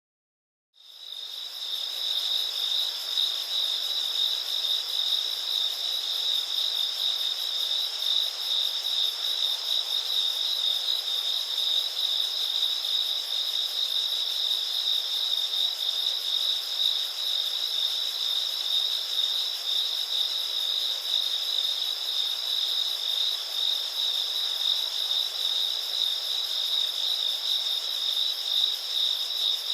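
Insects chirping in one continuous high-pitched trill, starting about a second in after a moment of silence.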